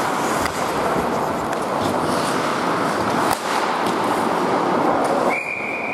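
Ice hockey play in an arena: a steady wash of rink noise with sharp clacks of sticks and puck, then near the end a referee's whistle starts and holds one steady high note, stopping play as the goalie smothers the puck.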